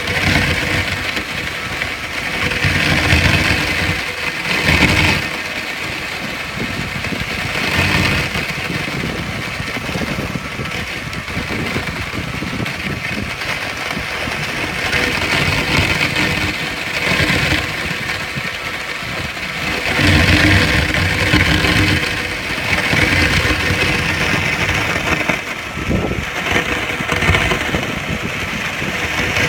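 Powerful water jet from a hose nozzle, 100 litres a minute, spraying onto a metal junction box during an IP water-jet test. The hiss and rumble swell and ease every few seconds as the jet moves.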